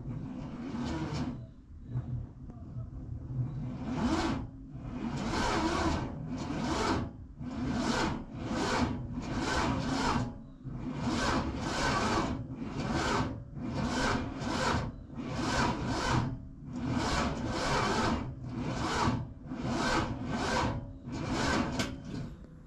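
1986 Chevrolet Monte Carlo SS's V8 cranking on its starter in a cold start without catching, in slow, labored rasping strokes a little over one a second, beginning about four seconds in. This is the sign of a weak battery; the owner turns to jump-starting it.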